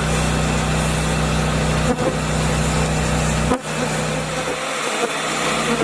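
Machine running with a steady low hum and a rushing noise; about three and a half seconds in, the hum cuts off suddenly with a click while the rushing carries on.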